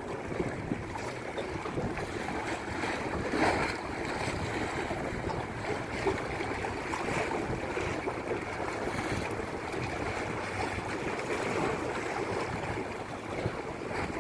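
Small waves washing and splashing against the breakwater rocks, a steady watery hiss with a louder splash about three and a half seconds in.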